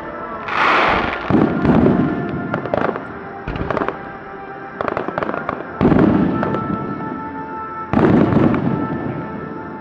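Aerial fireworks going off in volleys: heavy bursts about half a second in, near six seconds and near eight seconds, with crackling between them, over background music.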